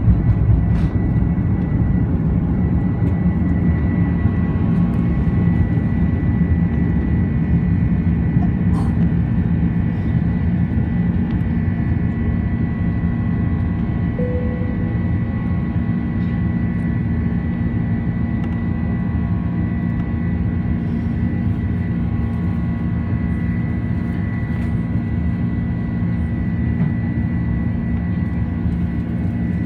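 Airbus A330-300 jet airliner heard from inside the passenger cabin: a steady, loud engine and airflow rumble with a thin steady whine on top, easing off slightly over the stretch.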